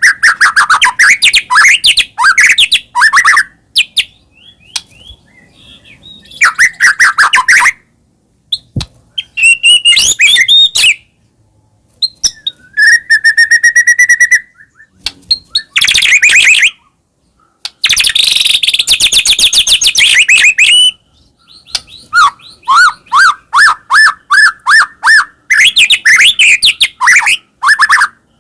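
White-rumped shama (murai batu) singing loudly in full song: bursts of rapid repeated notes, trills and clear whistles, each lasting a second to several seconds, with short pauses between them and one held whistled note midway.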